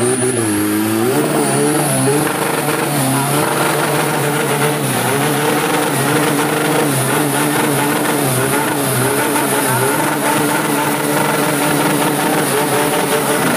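Off-road pickup's diesel engine revving hard, its pitch rising and falling over and over as the truck labours through deep mud, with the tyres churning and throwing mud.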